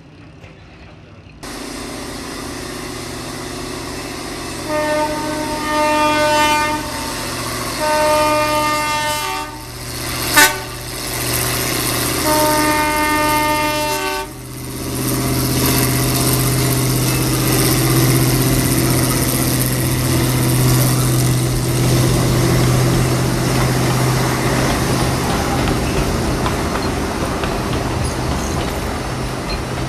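1928 Plymouth gas locomotive running with a steady engine hum, sounding its horn in several blasts over the first half, with one sharp crack among them. The engine then grows louder as the locomotive and its passenger cars pass close by.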